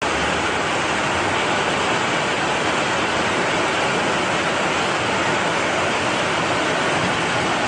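Fast-flowing floodwater rushing, a loud steady sound of water.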